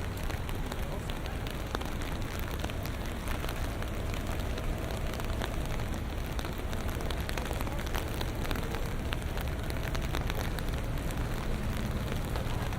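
Steady rain on a city street, a dense hiss of many small drop ticks over a continuous low rumble of traffic.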